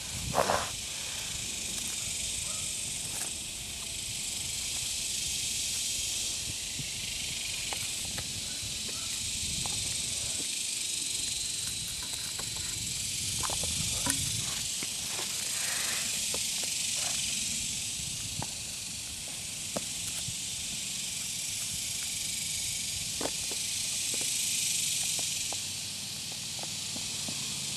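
Steady high hiss with scattered light crinkles and taps from plastic wrap being handled. The loudest crinkle comes about half a second in.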